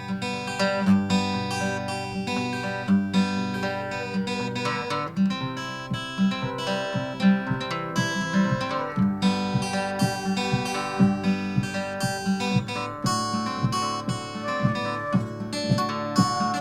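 Acoustic guitar playing an instrumental intro, plucked and strummed notes in a steady rhythm.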